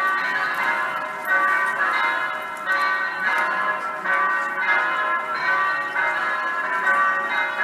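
Electronically simulated church bells, played over loudspeakers, pealing in full swing: several bells of different pitches strike in turn, a little more than once a second, each stroke ringing on into the next.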